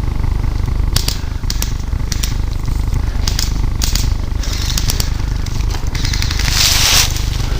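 Footsteps crunching and rustling through dry leaves and undergrowth in irregular crackles, with a longer brushing rustle near the end, over a steady low rumble on a helmet-mounted camera's microphone.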